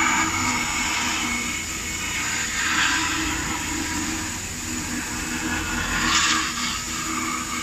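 4-axis rotary CNC router spindle running with a steady high whine as its bit carves a foam block. The cutting noise rises and falls as the tool moves, swelling about three and six seconds in.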